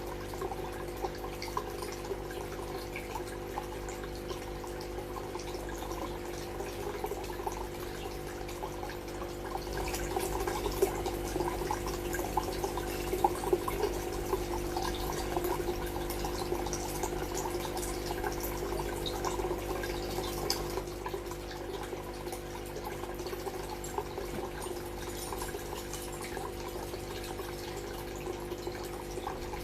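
Aquarium water trickling and splashing over a steady motor hum. The splashing grows louder from about ten seconds in and eases again about twenty seconds in.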